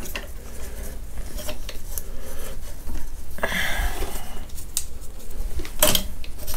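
Light metal clicks and scraping as a bolt is fed through a motorcycle foot-peg bracket by hand, with a longer scrape about three and a half seconds in and a sharper click near the end.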